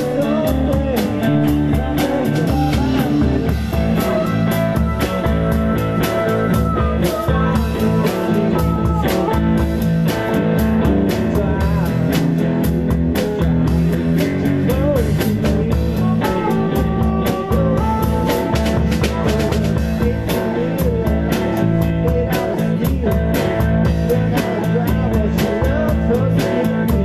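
Live blues band playing: electric guitar and drum kit keeping a steady beat, with harmonica lines bending over the top.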